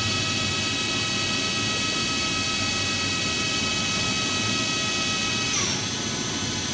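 Spindle of a Cincinnati Milacron Arrow 1250 CNC vertical machining center running at 3,000 RPM, a steady whine made of several high tones. A little over five seconds in, the whine drops in pitch as the spindle slows down toward its next speed step.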